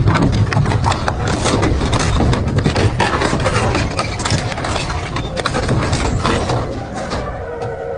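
Double-shaft metal shredder grinding through metal, a heavy low rumble with frequent sharp cracks and crunches of tearing metal. Near the end the crunching fades and music comes in.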